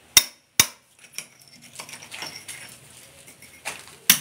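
Hammer driving a steel chisel into a thick brick-and-plaster wall: two sharp metal-on-metal blows about half a second apart, then a pause with a few faint knocks, and more blows near the end.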